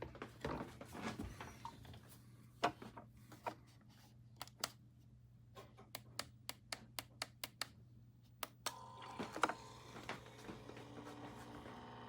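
Clicks and knocks of hands working a Keurig K-Supreme Plus single-serve pod coffee maker, including a quick run of light clicks at about four a second. About three-quarters of the way through, a steady machine hum starts up and keeps going.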